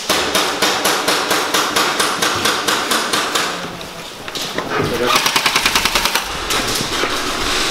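Airsoft rifles firing rapid strings of shots: a long run of evenly spaced shots over the first few seconds, then after a short lull a faster, louder burst about five seconds in.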